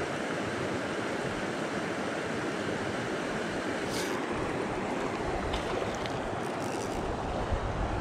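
Steady rush of a small stream's flowing water, with a low rumble building in the second half and a few faint ticks.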